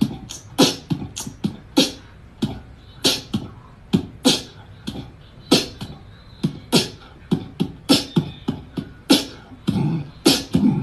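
A series of sharp percussive pops and clicks at an uneven rhythm, about two or three a second, in the manner of mouth percussion.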